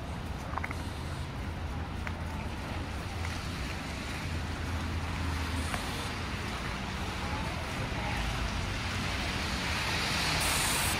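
City street noise in falling snow: a steady low traffic rumble with the hiss of tyres on a snowy road, swelling near the end as a vehicle passes close.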